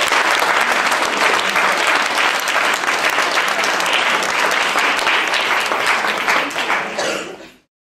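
Audience applauding, dense clapping at a loud steady level that fades out quickly near the end.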